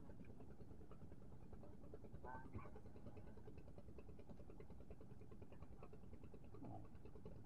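Near silence: faint, steady open-air background noise, with two faint, brief sounds, one about two seconds in and one near the end.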